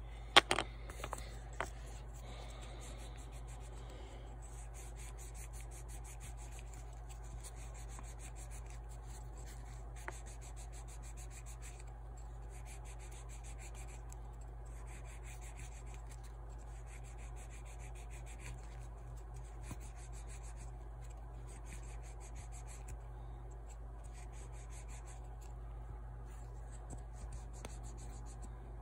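Small protective door lock cover being rubbed clean and polished by hand, in runs of rapid back-and-forth scrubbing strokes lasting about a second each, over a steady low hum. A sharp click comes about half a second in.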